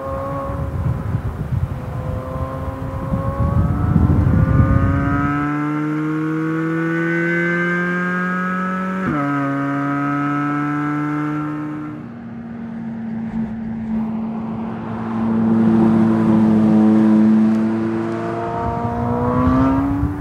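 2023 Chevrolet Corvette Z06's naturally aspirated 5.5-litre DOHC V8 pulling up through a gear, its pitch climbing steadily, then dropping sharply at an upshift about nine seconds in. It then holds a steady note and climbs again near the end.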